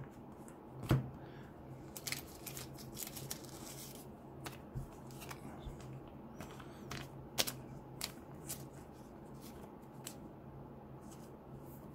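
Trading cards being handled and sorted by hand, sliding against each other, with scattered sharp clicks and snaps of card edges. A low steady hum runs underneath.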